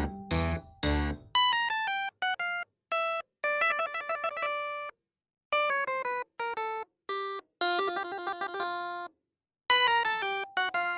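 Light instrumental background music: strummed chords for about the first second, then a tune of clear single plucked or keyboard-like notes in short phrases, broken by two brief pauses.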